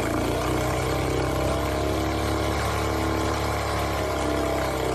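A 1960s Sea King 3.5 horsepower two-stroke outboard motor running smoothly, its engine note staying steady with only slight wavers in speed.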